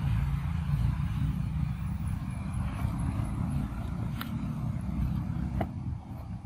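Steady low outdoor rumble, with two sharp clicks a little after four seconds and about five and a half seconds in.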